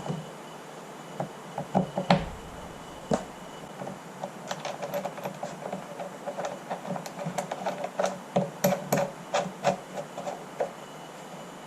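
Hand work on the snowmobile fuel pump and tank: irregular light clicks, taps and knocks as parts are handled and fitted, busiest in the middle and with a few sharper knocks.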